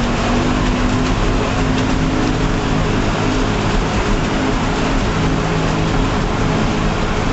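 Vehicle driving slowly on a rough gravel road, heard from inside the cabin: a steady engine hum under constant road and tyre noise, with small scattered knocks.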